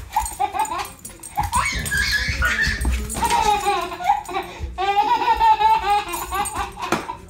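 A baby laughing and squealing while a dog vocalizes in play, in several drawn-out cries with a fast wavering pitch.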